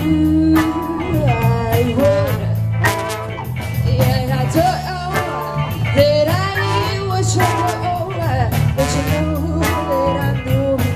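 A live band playing a blues-rock song with guitar, bass, drums and a singer's voice.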